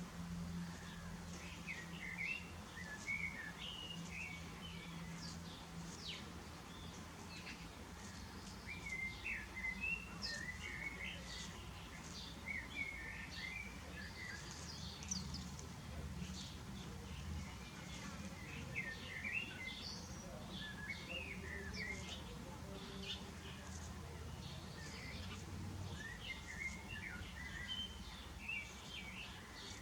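Small birds chirping and twittering, with many short, quick chirps throughout over a steady low hum.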